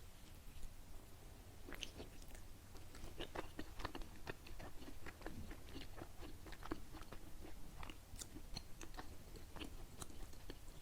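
Close-up chewing of a soft, sticky glutinous rice qingtuan filled with salted egg yolk taro paste: a steady run of wet mouth clicks and smacks.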